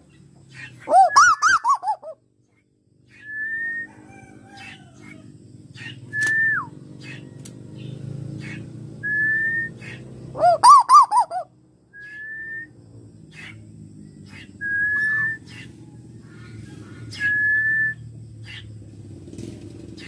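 Male Asian koel (tuwu) calling: short, clear whistled notes repeated every two to three seconds, broken twice by a loud burst of rapid up-and-down notes, about a second in and again about halfway through. A low steady background rumble sits underneath.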